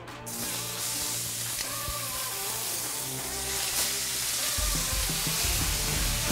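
Ribeye steaks sizzling as they sear in a ripping hot cast-iron skillet with butter, the sizzle starting just after the first steak goes in. Background music underneath, with a heavier bass line coming in near the end.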